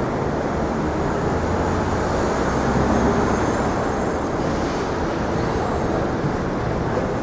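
Steady city street noise, a dense traffic rumble that swells a little about three seconds in.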